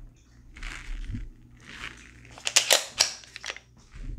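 A Glock 22C pistol handled in the hands: a soft rub of hands on the gun, then a quick cluster of three or four sharp, loud clicks of its metal and polymer parts about two and a half to three and a half seconds in.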